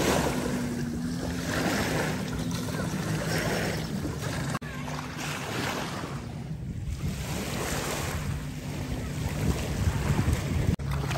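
Waves on a choppy lake washing in and breaking on the shore in repeated swells, every couple of seconds, with wind buffeting the microphone.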